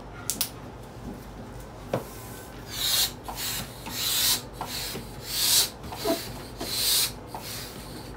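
Rubber balloons being handled and bunched into a decoration: a regular series of airy rubbing swells, about one every second and a bit, with a small click near the start.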